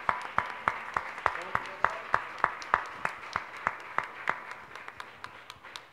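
A congregation applauding, with one nearby person's steady claps, about three a second, standing out above the rest. The applause fades away toward the end.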